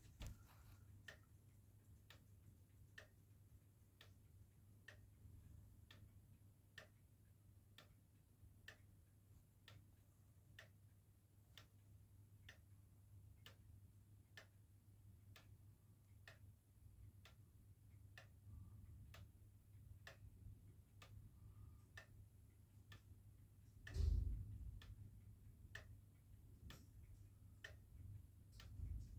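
Sligh grandfather clock ticking faintly and steadily, about one tick a second. A dull low thump comes about 24 seconds in.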